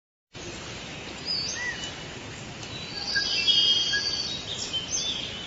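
Birds chirping and calling over a steady outdoor background hiss, with a cluster of louder trills about three seconds in.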